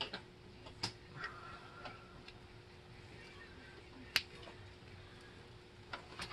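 A few light, sharp clicks and rustles of plastic wiring-harness connectors and wires being handled, the sharpest about four seconds in, over a faint steady hum.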